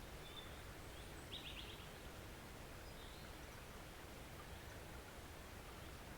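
Small forest stream flowing with a steady, soft rush of water. Faint bird chirps come over it, with a short quick trill about a second and a half in.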